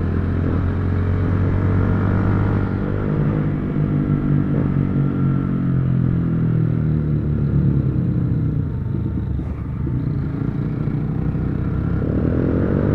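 Motorcycle engine running under way, its note climbing over the first few seconds, dropping back around the middle, then building again as the throttle changes.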